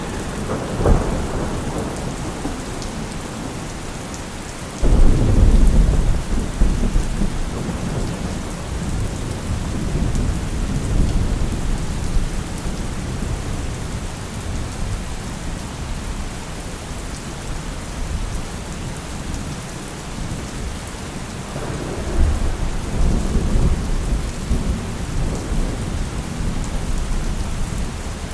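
Thunderstorm: steady rain hissing on a surface, with rolls of thunder. A short rumble about a second in, a loud thunderclap about five seconds in that rumbles on for several seconds, and another long roll of thunder near the end.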